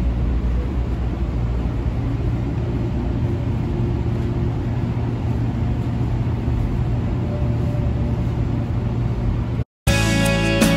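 Steady low rumble of a light-rail train running, heard from inside the passenger car. It cuts off near the end and music with plucked, guitar-like notes begins.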